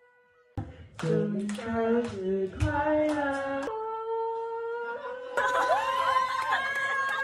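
A woman singing into a karaoke microphone, her voice amplified through the room's speakers, starting about half a second in with a long held note near the middle. From about five seconds in, more voices join.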